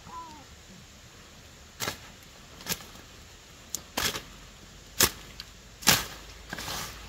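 A hand-held cutting tool slashing through leafy brush and stems: about six sharp chops roughly a second apart, starting about two seconds in, the last one a longer rustling swish through the leaves.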